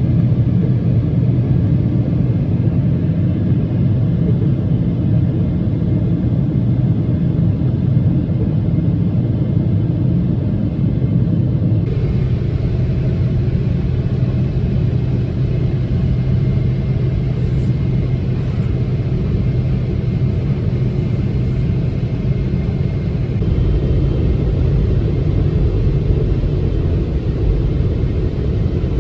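Steady low cabin drone of a Boeing 777-300ER on approach: its GE90 engines and the airflow over the fuselage, heard from a window seat. The tone changes slightly about twelve seconds in.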